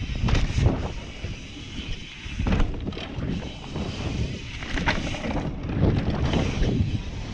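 Mountain bike riding fast down a dirt trail: wind buffeting the camera microphone over the rumble of the tyres, with irregular knocks as the bike runs over bumps.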